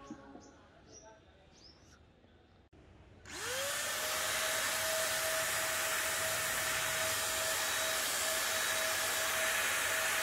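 Near silence with a few faint clicks, then about three seconds in a handheld heat gun switches on. Its fan motor spins up with a quickly rising whine that levels off into a steady tone over a constant rush of blown air.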